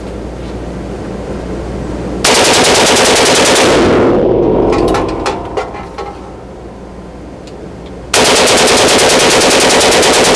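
Tripod-mounted belt-fed machine gun firing two full-auto bursts, each a second and a half or more of rapid shots. The first comes about two seconds in and the second near the end. A few sharp clicks fall between the bursts, and the shots echo off the range walls.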